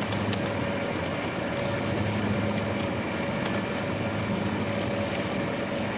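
Steady machine hum from the powered-up laser marking system, with a few faint, irregular keyboard key clicks as a serial number is typed in.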